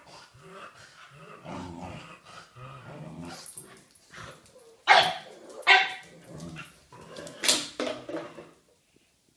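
A Samoyed and a pug playing: low growls and grumbles, then three loud, sharp barks in the second half.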